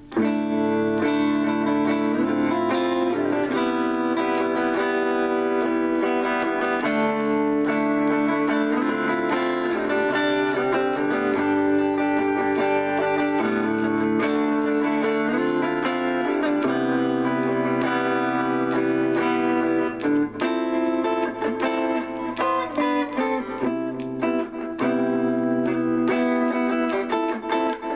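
Electric guitar through an amp on a clean tone with the treble turned down a little, improvising sustained chords and melodic lines in an easy-listening, light-jazz vein. A little past twenty seconds in, the playing becomes choppier, with short breaks between phrases.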